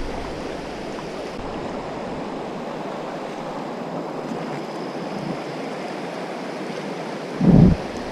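Steady rush of a fast mountain river running high over a rocky riffle. Near the end there is a brief low thump of about half a second.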